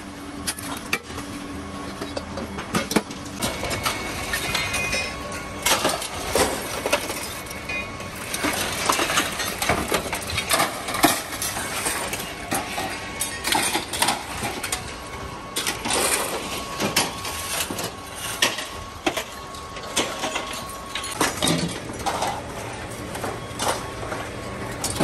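Scrap metal parts clattering and clanking as they are tossed onto heaps and into a barrow: many irregular metal knocks and clinks.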